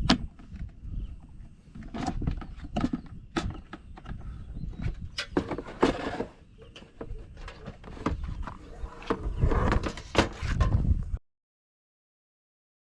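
Irregular knocks, clicks and clattering of objects being handled, over a low rumble. The sound cuts out abruptly to silence near the end.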